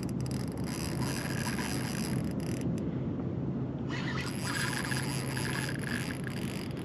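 Fishing reel drag buzzing as a large hooked fish strips line. It comes in two long runs, one for the first two and a half seconds or so and another from about four seconds in, over a steady low hum.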